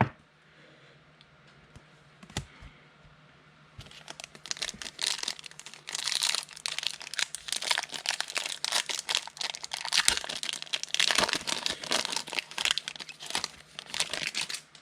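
A foil trading-card pack being torn open and crinkled by hand: a dense run of crackling starting about four seconds in and lasting until just before the end.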